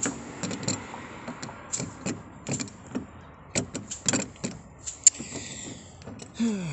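Dorman metal door handle clicking and knocking against the door of a 1997 Ford Ranger as it is pushed at the mounting holes, with a sharp click about five seconds in. Its inner brackets hit the door and it won't seat: the aftermarket handle doesn't fit.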